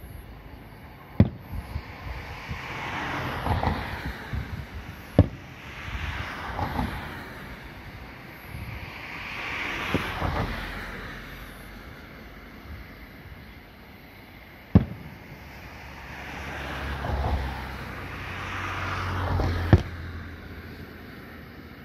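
Aerial firework shells bursting: four sharp bangs spread out, a few seconds apart, with a few fainter pops. Between them a rushing noise swells and fades several times.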